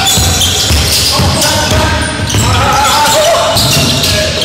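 Basketball game on a hardwood gym floor: the ball bouncing as it is dribbled, and sneakers squeaking as players cut and stop.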